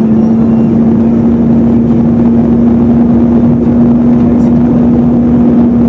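Volvo FH 440 truck's six-cylinder diesel engine running steadily under load while plowing snow, heard from inside the cab: a loud, even drone with a steady hum of unchanging pitch over a low rumble.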